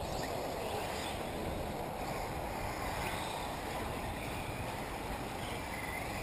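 Steady outdoor rumble of wind, with the faint rising and falling whine of small radio-controlled off-road buggies running on a dirt track.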